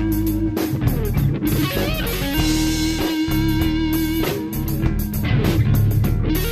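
Live rock band playing: a drum kit with cymbal crashes under electric guitar, the guitar holding and bending its notes over a steady bass.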